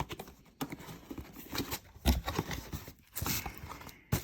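Cardboard box and packaging being handled: irregular knocks and clicks with rustling, a heavier thump about two seconds in and a burst of rustling a little after three seconds.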